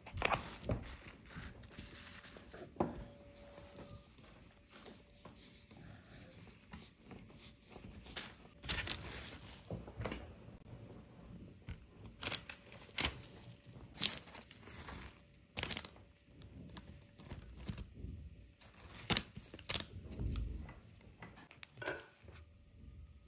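Kitchen handling sounds of food preparation: scattered rustles, light knocks and scrapes, a dozen or so short sharp sounds spread irregularly, with a faint steady hum underneath.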